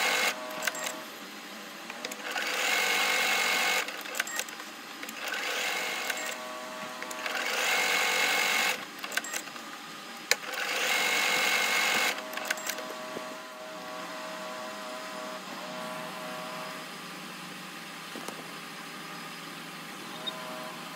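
Usha Janome Dream Maker 120 computerized sewing machine stitching in short runs of a second or two, about five times, with pauses between; after about twelve seconds it stops, leaving a quieter steady hum.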